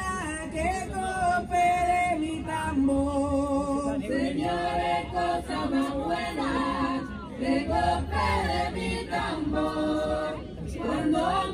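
Several voices singing together in harmony, choir-like.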